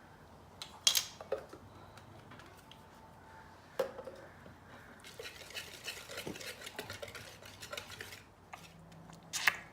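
Kitchen utensils clinking against a mixing bowl: a few sharp clinks, then from about five to eight seconds in a fast run of small clicks and scrapes as the wet cake-batter ingredients are whisked together.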